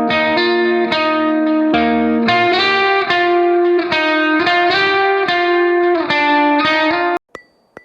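Background music: a guitar playing ringing chords that change every half second or so, stopping abruptly about seven seconds in, followed by two sharp ticks near the end.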